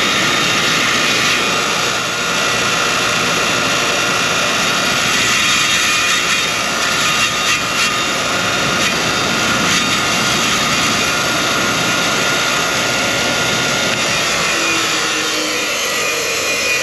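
Bauer 8-inch bench grinder running, its wheel grinding down a freshly welded metal bracket held in pliers: a loud, steady whine with grinding hiss.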